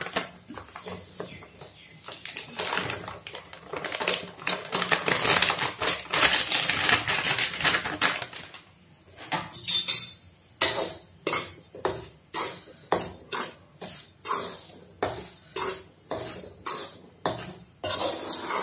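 Metal spoon scraping and clinking against a metal kadai while rice flour is added and dry-roasted. The first half is a dense run of scraping; after a short pause about halfway through, the strokes come evenly, about two a second, as the flour is stirred.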